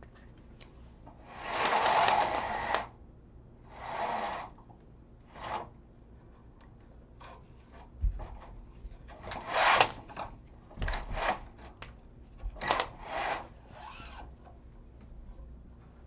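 Horizontal slatted window blinds being raised by pulling the lift cord, the slats rattling and rubbing as they stack up in a few pulls, the longest and loudest about two seconds in. In the second half they are let back down in several more bursts of rattling, with a thump at the start.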